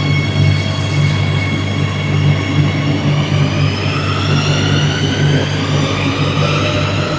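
Madrid Metro Serie 8000 train's traction motors whining as the train accelerates: several tones rise steadily in pitch from about three seconds in, over a constant low hum.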